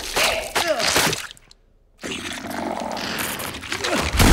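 Horror sound effects: short wavering cries in the first second, a moment of silence, then a rough noisy crash that ends in a heavy hit.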